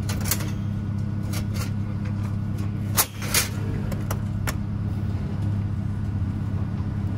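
Metal and glass clicks and clacks from a vintage Coca-Cola glass-bottle vending machine as a bottle is pulled from its rack and the glass door swung shut, with the loudest double clack about three seconds in. A steady low hum runs underneath.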